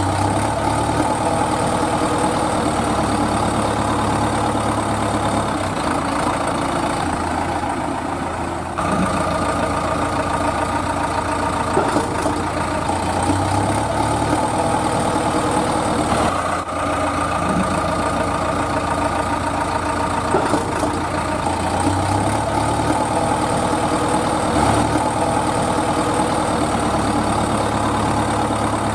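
Truck engine idling steadily, its low note shifting up and down every few seconds; a dubbed engine sound effect, since the toy truck on screen is pulled by a string and has no motor.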